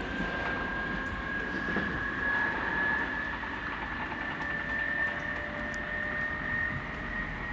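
Munich S-Bahn class 423 electric multiple unit accelerating away, its traction motors and inverters giving a steady whine that slowly rises in pitch, over a low rumble.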